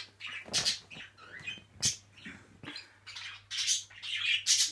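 Pet budgerigars chirping and chattering in a run of short, high chirps that come thicker toward the end.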